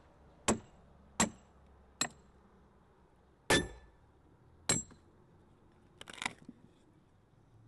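Axe chopping into the wood of a dugout canoe being hollowed out: about six sharp, unevenly spaced strikes, some with a brief metallic ring, the last few coming close together.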